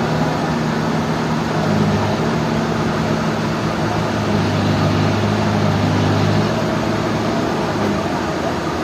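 Sawmill machinery running steadily: a dense mechanical noise over a low hum, which grows stronger for a few seconds mid-way.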